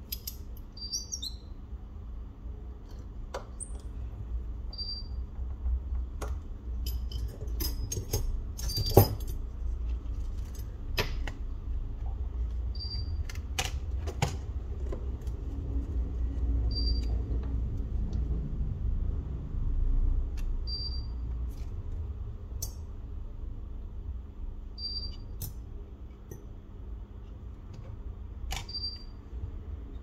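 Scattered light clicks and taps of small parts and tools being handled during a phone repair, over a steady low hum. A short high beep repeats about every four seconds.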